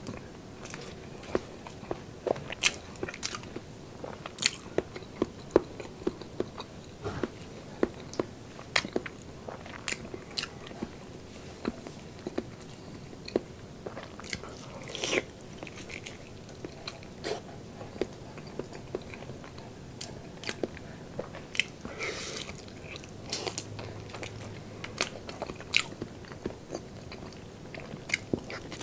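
Close-miked chewing of soft, sticky braised pork: wet mouth sounds and lip smacks with many sharp, irregular clicks throughout.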